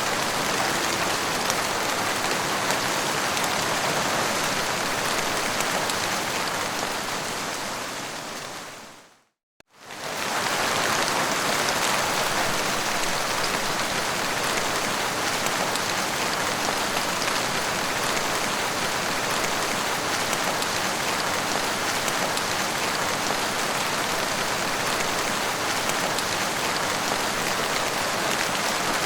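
Heavy rain falling in a steady hiss. About nine seconds in it fades out to silence and returns within about a second and a half, like the join of a looped recording.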